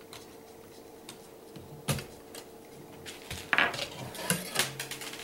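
Light metallic clicks and clinks as the LCD panel of a Dell Vostro 1520 laptop, in its metal side brackets, is worked loose and tipped out of the display lid: one sharp click about two seconds in, then a cluster of clinks and scrapes about a second later.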